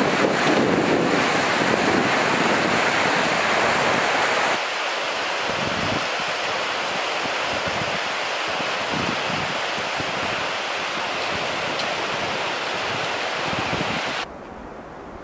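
Steady rush of a mountain torrent running over rocks. The sound changes about four and a half seconds in and drops to a lower level near the end.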